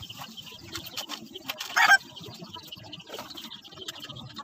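Scattered light clicks and taps of hand work on a Rusi Chariot 275's differential, with a brief, louder bird call about two seconds in.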